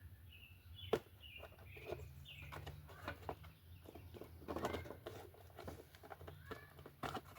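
Faint scattered clicks and knocks of the Yamaha TW200's plastic side cover being unclipped and pulled off by hand.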